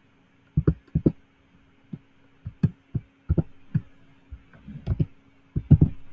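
Keys of a computer keyboard being typed as a password is entered: irregular single and paired taps, about two a second, over a faint steady hum.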